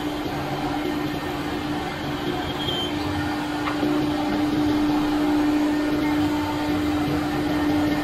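Steady machine hum from a CNC router, with one constant mid-low tone held over an even mechanical noise.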